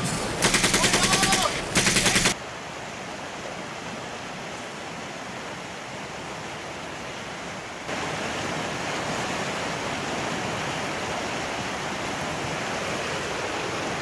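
Two short bursts of rapid automatic gunfire, then the steady rush of water pouring through river rapids, which gets louder about eight seconds in.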